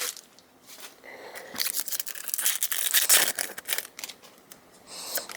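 Foil Pokémon booster pack wrapper being torn open and crinkled, a dense crackling rip.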